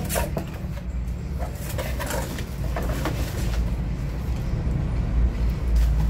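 Cardboard speaker box being opened by hand: flaps rustling and knocking, then plastic wrapping crinkling as a speaker is pulled out, in scattered short bursts. A steady low rumble runs underneath.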